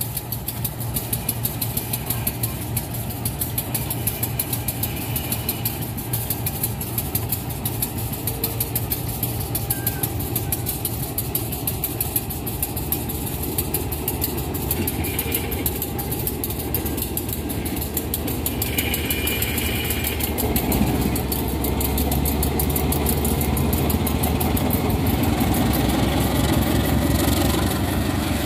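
Diesel engine of a GE CC203 diesel-electric locomotive running steadily with a rapid pulsing beat, growing louder and deeper about two-thirds of the way through.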